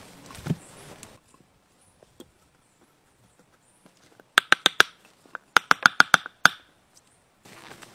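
A dull thump as a log is set down, then two quick runs of sharp, ringing knocks on wood, about four and then about eight in rapid succession, as a log is worked with a hand tool.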